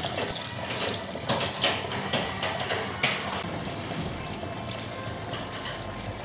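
Petrol poured from a plastic bucket into a plastic container, splashing and trickling unevenly.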